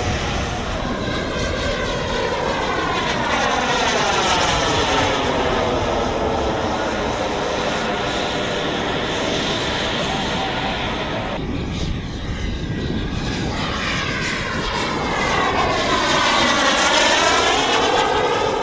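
Turbine-powered scale model F-15 jet flying by: a steady rushing jet roar whose tone sweeps up and down as the aircraft moves across the sky. It dips briefly about two thirds through and is loudest near the end as the jet passes low.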